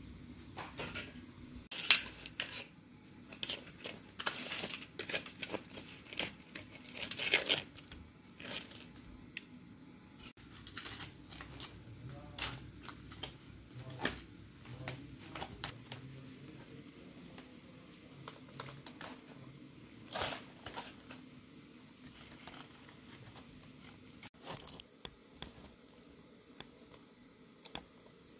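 Aluminium foil crinkling and tearing in irregular bursts as it is peeled open from around a whole roasted chicken, loudest in the first eight seconds.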